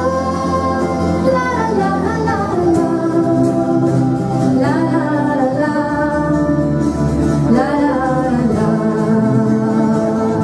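A woman singing a Breton song in long, held notes that slide between pitches, over a steady held instrumental accompaniment.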